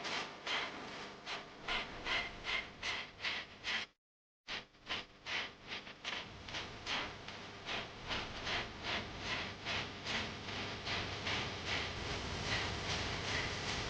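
Rhythmic clapping, a quick even beat of about three claps a second, broken by a brief dropout about four seconds in.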